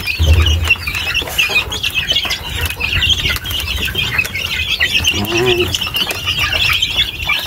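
Flock of young chickens peeping constantly in many overlapping high calls while they feed. There is a brief low rumble just after the start.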